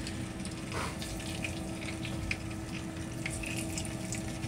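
Thin slices of pork sizzling in an oiled frying pan on an induction hob, with scattered light crackles and a brief louder sizzle about a second in as another piece goes in. A steady low hum runs underneath.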